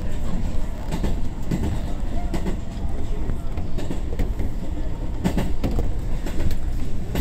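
Ride noise inside a JR East 205 series 3100 subseries electric train running between stations: a steady low rumble of wheels on the track, with scattered sharp clicks.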